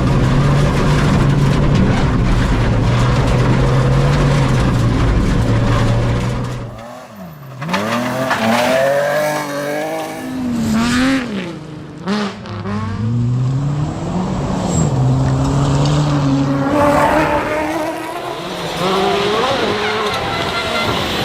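Rally car engine running hard, holding a steady note at first. After a brief drop about seven seconds in, the pitch rises and falls repeatedly as it revs through gear changes, with some tyre squeal.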